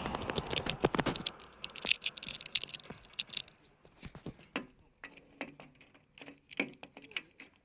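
Replacement door lock being fitted into the metal rear door of a school bus: a rapid run of sharp metallic clicks and scrapes for the first three seconds or so, then scattered single clicks.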